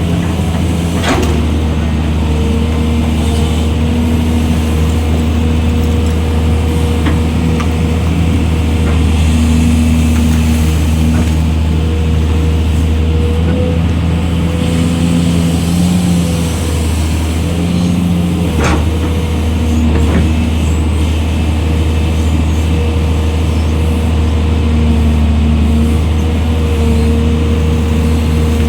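Hydraulic excavator's diesel engine running steadily under working load, with steady tones that come and go above the engine hum and a few sharp knocks.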